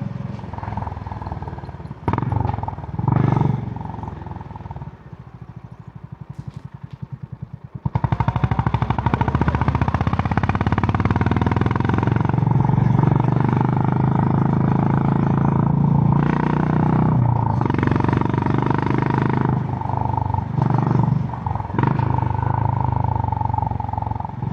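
Honda GB350's single-cylinder engine through its stock exhaust. It runs at low revs for the first third, its individual firing beats audible, then the throttle opens sharply and it pulls hard, with a few short dips in level along the way.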